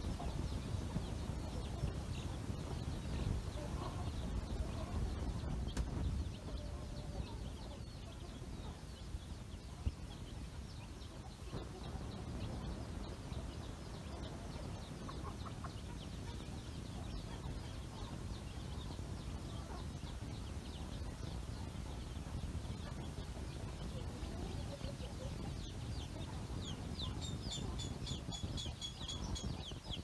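A flock of young chicks peeping: many short high chirps, growing busier with falling peeps in the last few seconds. An adult hen clucks now and then, over a steady low rumble.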